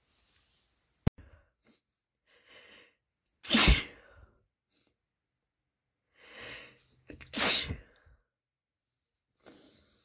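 A person sneezing twice, each loud sneeze preceded by a short catching inhale as the sneeze builds up. A sharp click comes about a second in, and a breath follows near the end.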